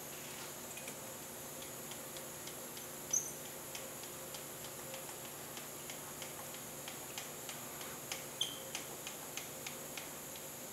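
Light, fairly regular ticking, about three to four clicks a second with a louder click about three seconds in, as the table of a ProtoTRAK SMX CNC mill travels along its X axis, over a steady machine hum.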